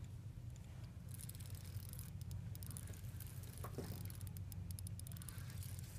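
Spinning reel being cranked to bring in a hooked white bass: faint fine rapid clicking in runs, over a steady low hum.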